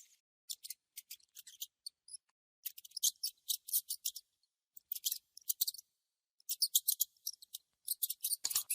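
Mouse squeaking: rapid, high-pitched squeaks coming in short clusters with silent gaps between them, and a brief click near the end.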